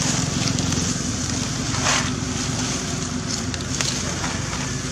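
Steady low rumbling noise with a faint steady hum under it, and a brief rustle about two seconds in.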